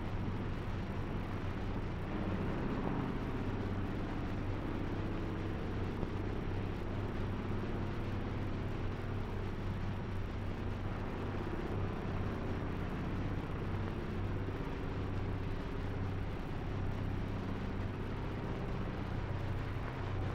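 Steady drone of a propeller aeroplane's engine, with a strong low hum and an even hiss over it.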